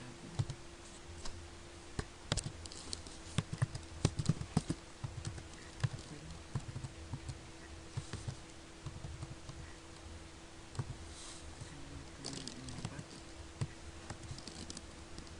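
Computer keyboard being typed on: irregular key clicks in bursts, thickest a couple of seconds in and again near the end, over a steady low hum.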